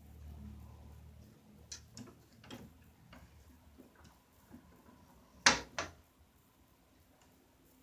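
A sleeping woman's snore, a low rumbling breath that ends about a second in. It is followed by a few light clicks and then two sharp knocks close together about five and a half seconds in, the loudest sounds here.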